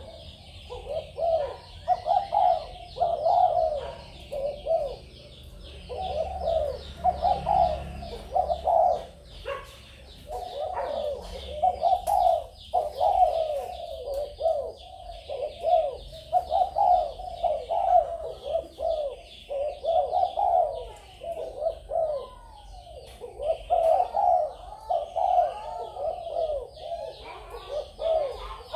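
Spotted doves cooing: phrases of several notes repeat with hardly a pause, over a dense high chirping behind them.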